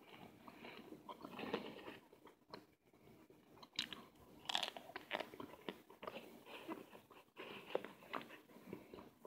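A person biting and chewing chunks of cornstarch close to the microphone: irregular dry crunches, loudest about four seconds in and again near the end.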